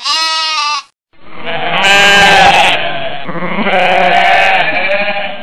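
Animal cries dropped in as a comic sound effect: one short call, then after a brief gap a long, wavering call lasting about four seconds.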